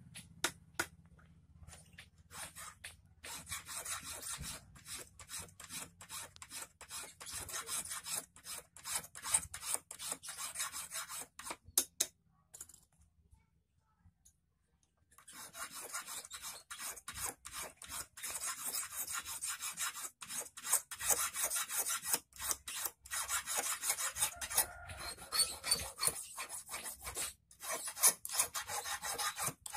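Hand file rasping on the end of a thin metal wire held in a clamp, in quick short strokes, shaping the wire's tip for an eel hook. The strokes stop for about two seconds a little before halfway, then start again.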